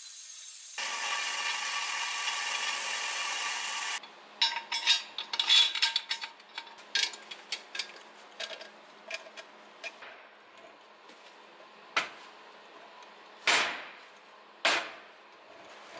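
A steady machine noise for about the first four seconds, cut off abruptly. Then steel parts, bolts and swivel casters clink and knock on a steel workbench as a caster base is bolted together: a busy run of metallic clicks at first, then sparser knocks, a few of them sharp and loud near the end.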